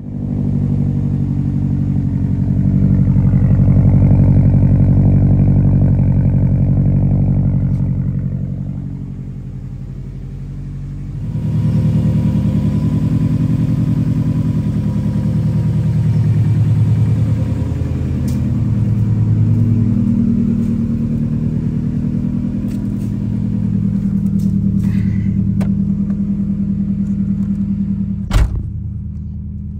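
Subaru Impreza WRX STi Type R's 2-litre turbocharged flat-four idling steadily through a Group A replica exhaust, just after a cold start on a near-freezing morning. A single thump comes near the end.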